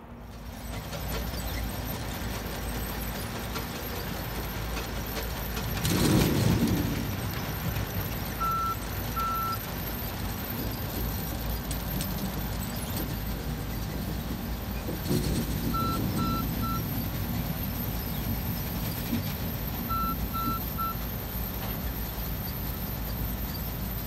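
Steady rumble of heavy beet-handling machinery, with a vehicle's reversing alarm beeping in short sets (two beeps, then three, then three). A loud rush of noise about six seconds in and a smaller one near the middle.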